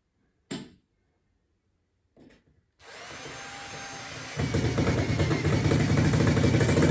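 A short click, then an electric drill-driver runs for about four seconds driving a screw into the coffee table panel; about halfway through it gets much louder, with a dense low rattle, as the screw bites.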